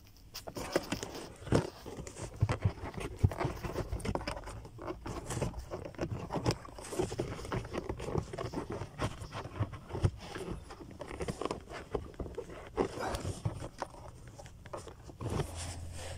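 Hands pushing and working a new pleated cabin air filter into its plastic housing to straighten it where it sits crooked: irregular scraping, rustling and small plastic knocks.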